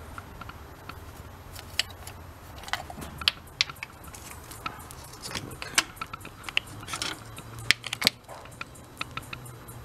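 Irregular sharp metallic clicks and clinks of a socket wrench and spark plugs as loosened plugs are unscrewed and pulled from the engine, the loudest clicks coming near the end.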